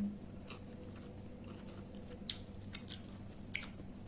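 A person quietly chewing a mouthful of paneer biryani, with a few faint sharp clicks scattered through it.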